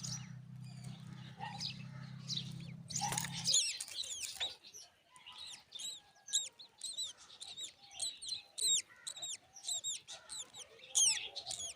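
Myna chicks calling with a quick run of short, high, sharp chirps, several a second, through the second half. Earlier there is a steady low hum that stops about three and a half seconds in, just after a loud rustling burst.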